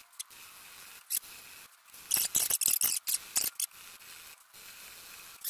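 Hand sanding with a folded piece of 60-grit sandpaper on an E-Prop paramotor propeller blade, taking down a pressure crack: short, high, scratchy strokes, the most of them in a quick run from about two to three and a half seconds in.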